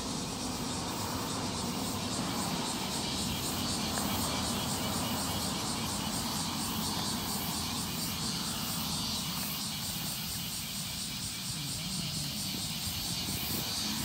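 Cicadas singing: a high, steady, rapidly pulsing drone, with a low rumble underneath.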